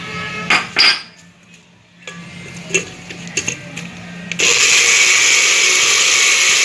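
A few sharp knocks and clicks, then about four seconds in a countertop blender starts abruptly and runs at a steady high speed, beating raw eggs for quesillo batter.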